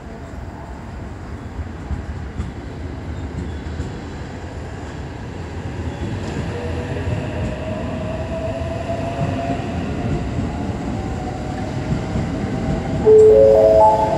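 JR West 289 series electric express train pulling out and accelerating past, its running noise growing steadily louder with a faint motor whine rising in pitch. About a second before the end, a loud short run of notes stepping upward cuts in.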